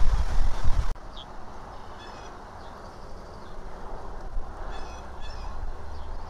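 Wind rumbling on an outdoor nest-camera microphone, cut off abruptly about a second in. Then quieter outdoor ambience with a few short, high bird chirps and calls.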